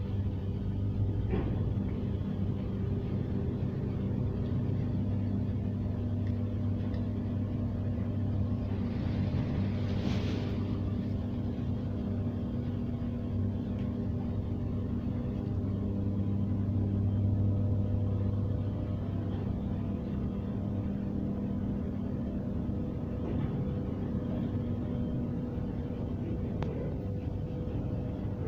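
A hydraulic truck tippler holding a loaded sugarcane truck tilted for unloading, running with a steady low machine hum. There is a brief hiss about ten seconds in and a few faint clicks.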